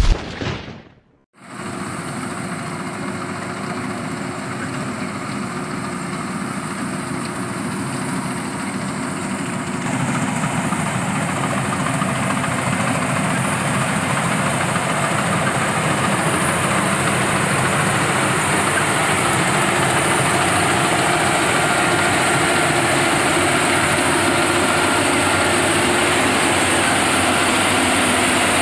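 Engine of a rice harvesting machine running steadily. It starts after a short loud hit and about a second of silence, and gets a little louder about ten seconds in.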